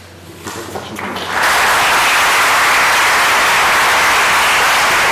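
Audience applause: a few scattered claps, then the full audience breaks into steady clapping about a second and a half in.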